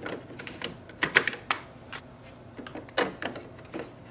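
Plastic clicks and knocks as Epson 822 ink cartridges are pushed down into the WF-4820's cartridge holder and snap into place with a lock click. An irregular run of sharp clicks, the loudest a cluster about a second in and another near three seconds.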